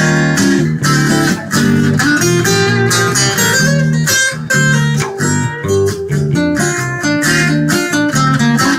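A live band plays an instrumental break between sung verses, with guitar to the fore and a steady rhythmic pulse.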